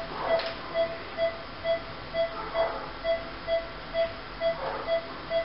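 Patient monitor beeping with each pulse of the anaesthetised animal, a steady mid-pitched beep a little over twice a second. Faint soft rustles sound about a third of a second in, halfway through and near the end.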